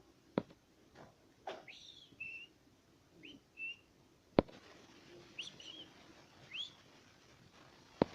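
Puppies squeaking in short, high-pitched rising cries, about six of them, with a few sharp clicks in between, the loudest about four seconds in.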